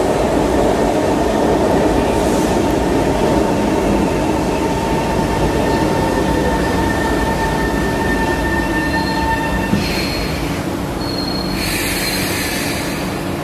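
Metro train pulling into a station and slowing to a stop, with squealing wheels and rumble fading as it slows and a motor whine falling in pitch. Two short hisses of air come near the end.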